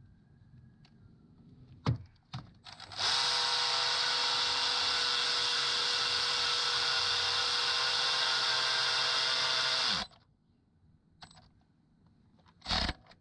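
Cordless drill/driver running steadily for about seven seconds, driving a bolt into the engine's front cover area, then winding down as the trigger is released. A couple of clicks before it and a knock near the end.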